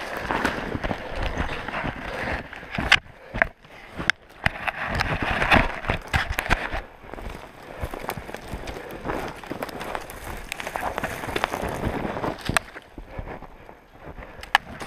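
Footsteps crunching through deep snow and clothing brushing through snow-laden branches and brush, in uneven rustling surges. A few sharp snaps or knocks stand out among them, twice in the first few seconds and again near the end.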